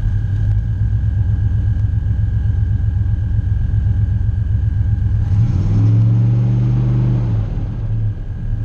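1994 Chevy 1500 pickup engine idling, then revved once about five seconds in, its pitch rising and falling back to idle. The owner takes the engine for badly worn, its pistons rattling in the bores.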